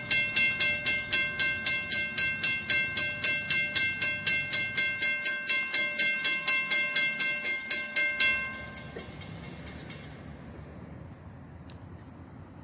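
Railroad grade-crossing bell ringing in a steady run of about four strikes a second, warning of an approaching train. It stops abruptly about eight seconds in, leaving only faint outdoor background.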